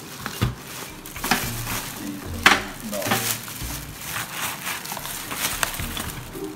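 Thin plastic protective bag rustling and crinkling as it is worked off an espresso machine, with irregular crackles and a sharper one about two and a half seconds in.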